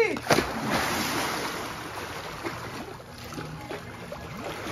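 A splash into a backyard swimming pool just after the start, then water churning and lapping, slowly fading.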